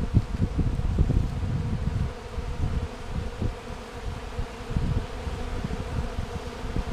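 A colony of honeybees buzzing over the open top bars of a hive box, many bees at once, the buzz swelling and fading unevenly with a low rumble under it.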